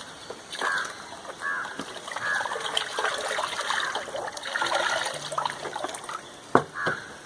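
Clay slurry being poured and strained through a sieve, water trickling and splashing unevenly, with one sharp knock about six and a half seconds in.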